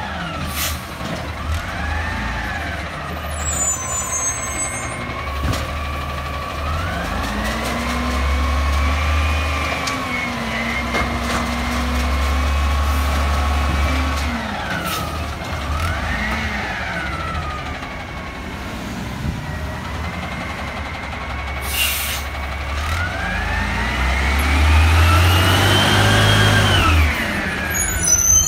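Natural-gas Peterbilt 320 garbage truck's engine revving up and falling back several times, the longest rev in the middle and the highest near the end; on an automated side loader such revs drive the hydraulics that work the arm. A short air hiss comes a little past two-thirds of the way through.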